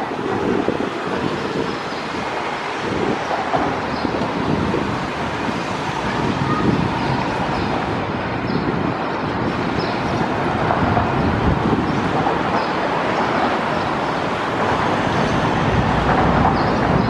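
Road traffic passing close by, a steady rush of car and van tyres and engines that grows a little louder in the second half.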